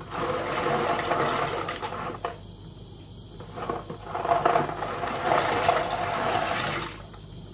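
Pasta being tipped from its box into a pot of boiling water, the water hissing and splashing, in two pours with a short pause between.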